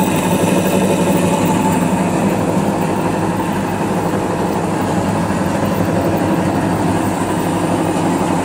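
DoAll vertical bandsaw running steadily, its blade cutting down through a thick metal block: a constant motor hum with blade and cutting noise over it.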